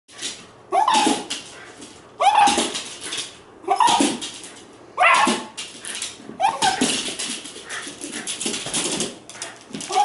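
A terrier barking over and over, one loud bark about every second and a half, then a denser run of quieter barks toward the end.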